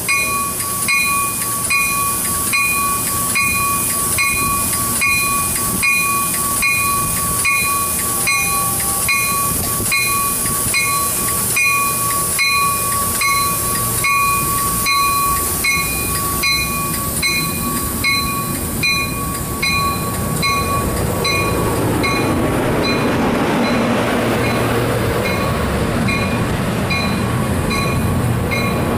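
Amtrak California passenger train pulling out, with a bell ringing about twice a second over a steady high whine. The whine stops about three-quarters of the way through, and the bell fades while the rolling noise of the bilevel cars builds.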